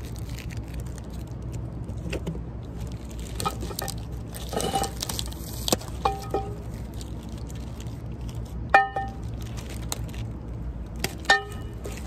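Roof rack bars knocking together, about four sharp metallic clinks that ring briefly, the loudest two in the second half. Between them the plastic wrapping rustles and crinkles as it is pulled off the bars. A steady low hum runs underneath.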